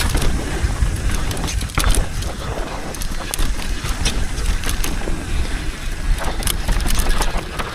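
Mountain bike rolling down a dirt trail on a flat rear tyre: a steady rumble of tyres and trail with frequent sharp knocks and rattles over the bumps, which the rider takes for the rim hitting the ground.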